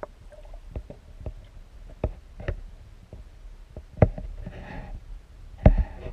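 Irregular muffled knocks and clunks picked up through an underwater camera's housing beside a netted striped bass, loudest about four seconds in and again near the end, with a brief hiss between them.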